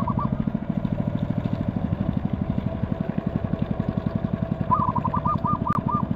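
Small boat engine running steadily with an even putter of about a dozen pulses a second. Near the end a bird calls a quick run of short chirping notes over it.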